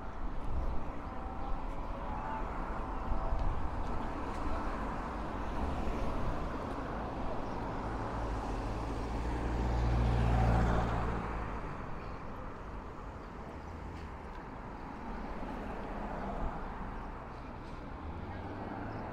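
Road traffic, with one vehicle passing close by: its engine and tyre noise swells to a peak about halfway through, then fades away.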